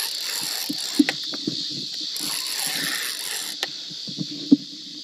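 Spinning reel being cranked against a hooked fish, with irregular low knocks and a few sharp clicks from the reel and rod, the sharpest near the end. A steady chorus of night insects runs underneath.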